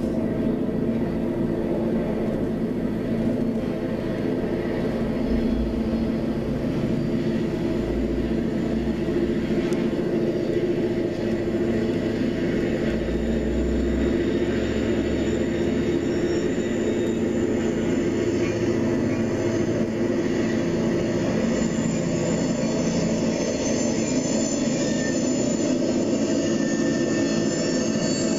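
Norfolk Southern diesel locomotives approaching on a curve, the engines running with a steady drone. High-pitched steel wheel squeal joins over the last few seconds, the sign of wheel flanges grinding on the curved rail.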